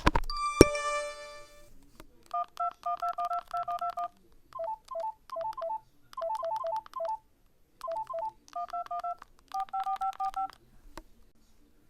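Touch-tone (DTMF) dialing on an old phone: quick runs of short two-tone beeps, about five or six a second, in several groups with short gaps between them. It opens with a click and a brief ringing tone.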